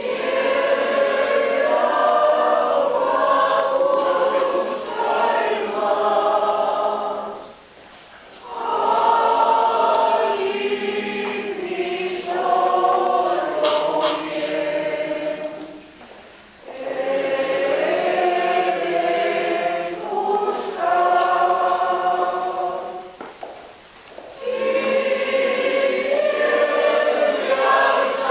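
Church choir of women and men singing a hymn unaccompanied, in phrases of several seconds each with three short pauses for breath.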